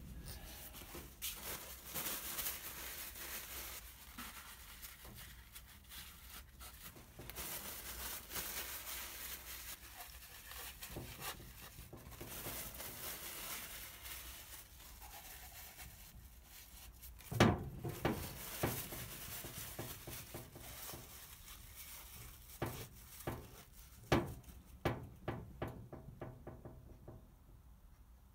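Paper towel and tape rustling and tearing by hand over a bare engine. A few sharp knocks come about two-thirds through, then a quick run of clicks and knocks near the end.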